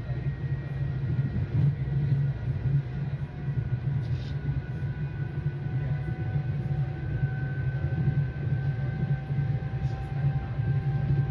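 Inside a PATCO Speedline rapid-transit car running at speed: a steady low rumble of the train on the rails, with a faint steady high whine over it.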